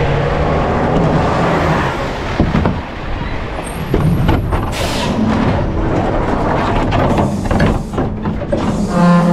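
Garbage truck running, with scattered knocks and a short hiss of air about five seconds in.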